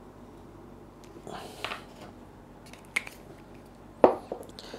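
Small handling sounds of gluing a 3D-printed part on a silicone work mat: a soft rustle, a light click, then a sharp knock about four seconds in as a small plastic super glue bottle is set down on the wooden bench.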